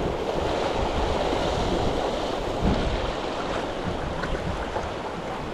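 Surf washing against shoreline rocks, with wind buffeting the microphone; one louder surge nearly three seconds in.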